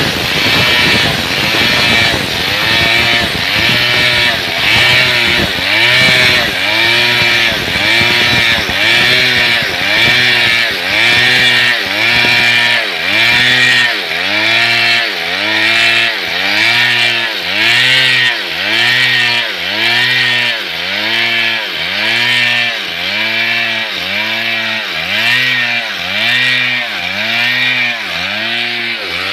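Stihl two-stroke chainsaw ripping lengthwise along a wooden plank, running at high revs under load. Its pitch rises and falls about once a second as the bar is rocked back and forth in the cut.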